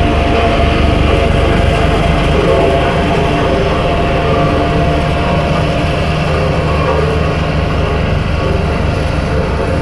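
BOMAG road roller's diesel engine running steadily with a heavy low rumble.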